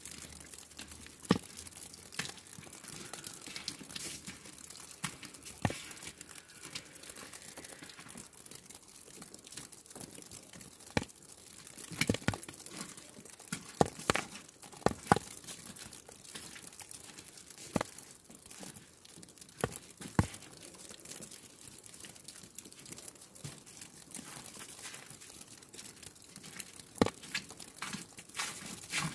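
Snow falling, heard as irregular small ticks and crackles over a faint steady hiss, with a few louder ticks here and there.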